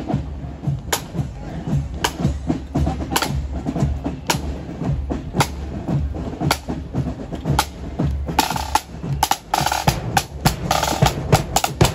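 Marching band side drums playing a street beat with rolls, a stronger stroke falling about once a second. The drumming gets busier near the end.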